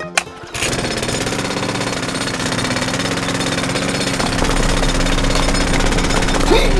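A single sharp click, then about half a second in a steady, rapid mechanical rattle like hammering starts suddenly and keeps going. A low hum under it grows stronger after about four seconds.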